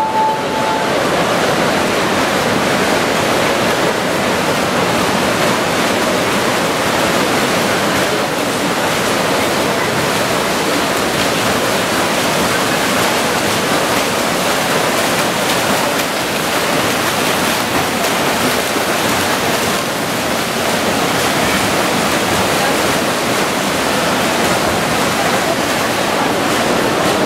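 Continuous splashing of several swimmers racing front crawl, a steady loud wash of water noise echoing in an indoor pool hall. A short steady beep sounds in the first second.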